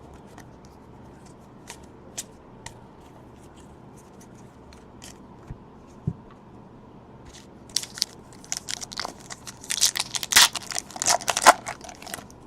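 Light scattered clicks of trading cards being handled, then from about seven seconds in a run of crinkling and tearing as a foil trading-card pack wrapper is torn open.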